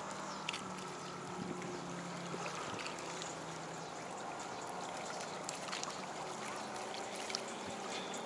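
Small waves lapping and trickling against a rocky shoreline, under the steady low hum of a distant motorboat, with a few faint ticks.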